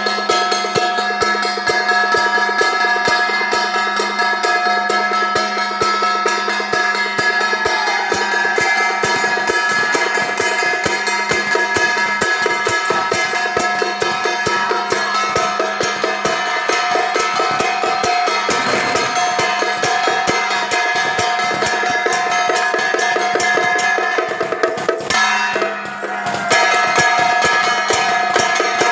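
Procession music: rapid, dense drumming and percussion strikes over several sustained tones, with a brief break about 25 seconds in.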